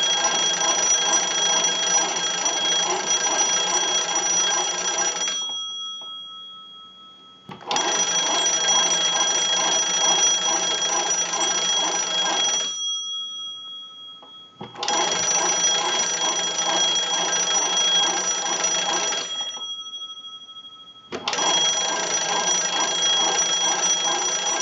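Kellogg wooden wall crank telephone's original twin bells, rung by turning the hand-cranked magneto: four bursts of rapid ringing, each lasting about five seconds and tapering off, with short pauses between.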